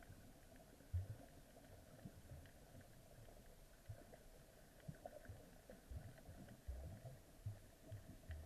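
Faint, muffled underwater sound picked up through an action camera's waterproof housing: a steady low hiss with irregular dull low thumps, the loudest about a second in and several more near the end.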